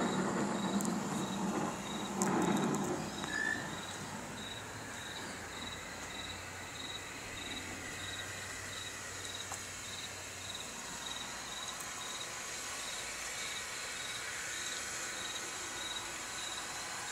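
A cricket chirping steadily, a short high chirp about twice a second, over a faint steady background hiss. A louder low rumble fills the first three seconds and then fades.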